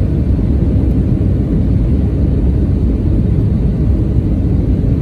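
Steady low rumble of jet engine and airflow noise inside the cabin of a Thai Smile Airbus A320 airliner in flight, heard at a window seat beside the wing-mounted turbofan engine.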